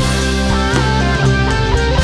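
Instrumental background music with guitar over a steady bass line; some guitar notes bend in pitch.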